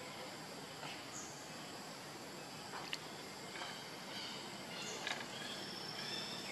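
Faint outdoor background with scattered short, high-pitched chirps and a few soft clicks.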